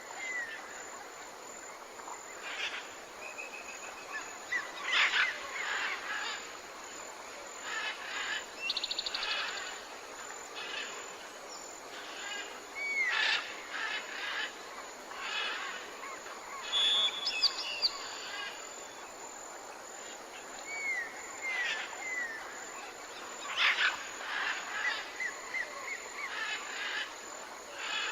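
Jungle ambience: many birds calling over a steady high insect drone. The calls include short hooked whistles in twos and threes, quick trills and scattered chirps.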